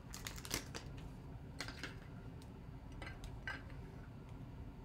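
Light clicks and taps of hard plastic card cases being handled: a cluster in the first second, then a few more spaced clicks around the middle and later.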